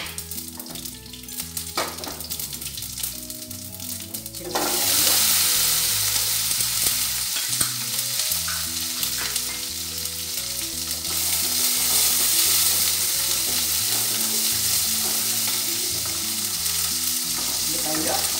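Mustard seeds and cumin sizzling in hot oil in a steel kadai. About four and a half seconds in, small onions go in and the sizzle jumps suddenly to a loud, steady hiss. A spatula stirs them near the end.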